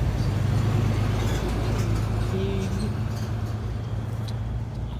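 A steady low motor hum, easing slightly toward the end, with a brief higher tone around the middle.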